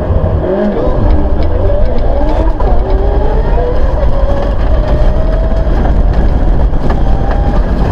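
Mitsubishi Lancer Evolution IX rally car's turbocharged four-cylinder engine heard from inside the cabin at speed on a gravel stage. The revs climb and drop with the gear changes over a heavy rumble, and gravel ticks against the car.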